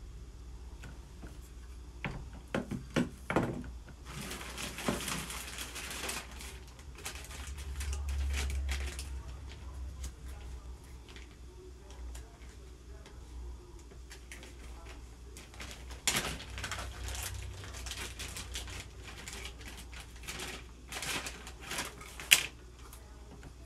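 Clear plastic bag rustling and crinkling, with light clicks and knocks, as a small scale-replica outboard motor is unwrapped and handled, ending in one sharp click near the end.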